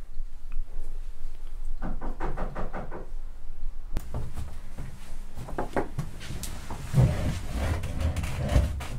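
A run of knocks and clatters from people moving about a dining table. The low rumbling of a wooden chair being moved is heaviest near the end.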